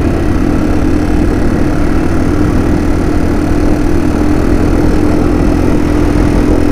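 2008 Yamaha TW200's single-cylinder four-stroke engine running at a steady cruising speed. Its hum holds one pitch over a loud rumble of wind and road noise.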